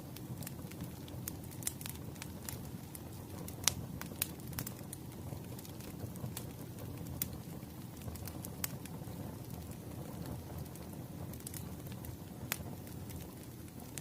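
Firewood burning: a steady low rumble of flames with scattered sharp crackles and pops, the loudest pop a few seconds in.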